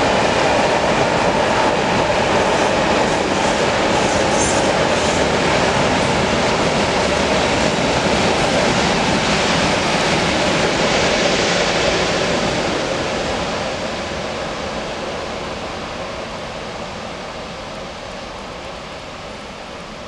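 Long freight train of open wagons rolling past, a steady rumble and rattle of steel wheels on the rails. It fades gradually over the last eight seconds.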